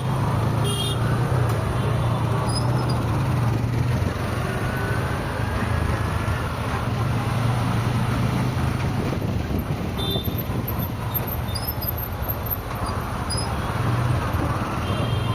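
Steady city traffic noise from a moving car: engine and road rumble with other vehicles around. Brief horn toots sound about a second in, around ten seconds in, and near the end.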